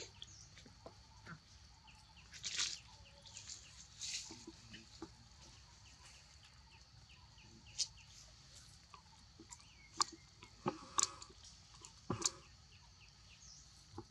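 Young macaques eating rice off a metal tray: scattered sharp taps and clicks of hands on the tray and brief rustles of dry leaves, over a steady faint high hiss.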